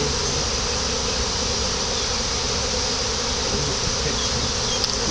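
A swarm of honeybees buzzing around a catch box: a dense, steady hum of many wings.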